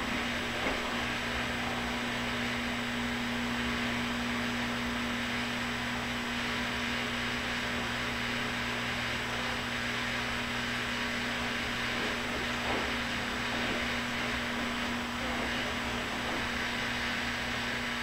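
Front-loading washing machine in its wash cycle: the motor hums steadily as the drum turns and soapy water sloshes over the laundry. The sound stops abruptly at the very end.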